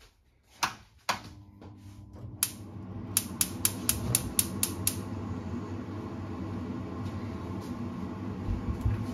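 Gas hob igniter clicking: a few single clicks, then a quick run of about five clicks a second for nearly two seconds. Under it, the steady rush of a lit gas burner.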